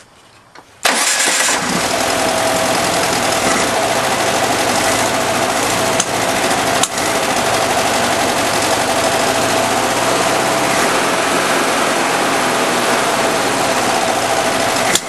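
Starter motor cranking a freshly rebuilt 1967 VW 1600 flat-four engine, kicking in suddenly about a second in and turning it over steadily without it catching: the engine has no fuel.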